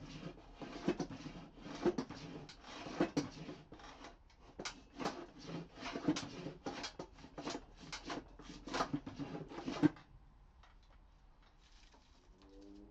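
Hand plane strokes across a reclaimed pallet-wood worktop, a scraping pass about once a second, taking down a high spot. The strokes stop about ten seconds in.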